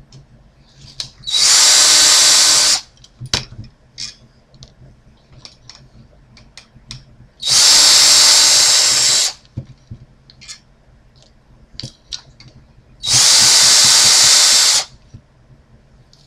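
Cordless drill spinning out the screws that hold a CPU cooler to a motherboard: three runs of about a second and a half each, with small clicks of handling between them.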